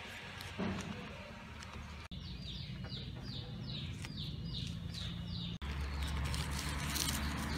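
A bird calling: a run of short, high, falling notes, two or three a second, for a few seconds in the middle. A soft knock comes about half a second in, and near the end a steady low rumble takes over.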